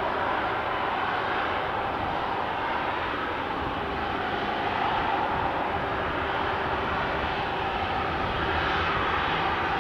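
Airbus A330-300 jet airliner's engines at taxi power: a steady whine over a broad hiss as the aircraft taxis.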